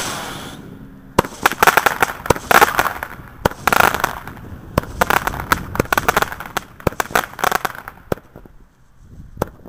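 Consumer fireworks going off: a bang right at the start, then a rapid run of sharp pops and crackles for several seconds that thins out near the end.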